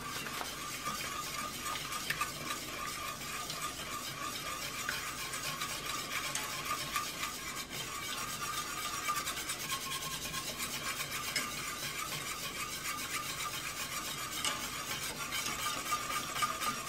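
Wire whisk stirring thick chocolate caramel sauce in a stainless steel saucepan, its wires scraping and tapping the metal pan in a continuous, fast rhythm.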